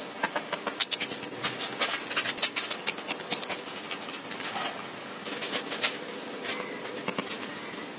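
Knife working bamboo: irregular sharp clicks, taps and cracks, often several close together, over a steady hiss.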